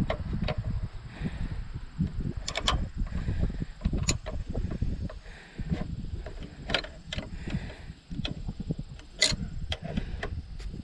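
Two wrenches working a carburetor fuel line fitting loose: a scattering of sharp metallic clicks and clinks over a low rumble.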